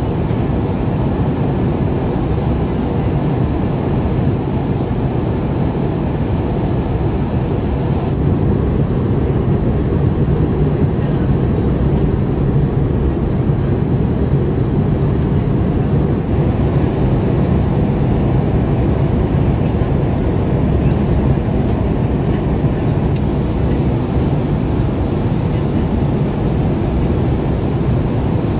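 Steady cabin noise of an Airbus A320ceo airliner on approach: a constant low rumble of engines and airflow heard from inside the passenger cabin.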